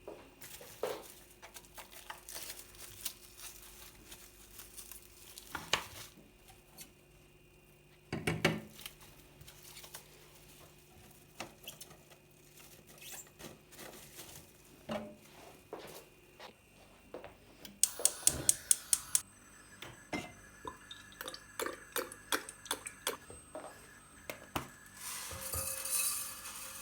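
Kitchen dishes and utensils clinking and knocking as food is prepared, in scattered taps. About two-thirds of the way through comes a quick run of about eight sharp taps, the loudest part, and near the end a brief hiss.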